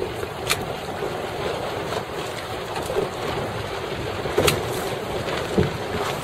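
Wind on the microphone over choppy open water: a steady rushing, with two brief sharp clicks, one about half a second in and one a little after four seconds.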